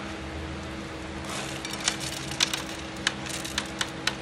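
Small stone beads clicking and rattling against a perforated metal hand sieve as they are shaken and sifted, scattered clicks starting about a second in with a few louder ticks. A steady low hum runs underneath.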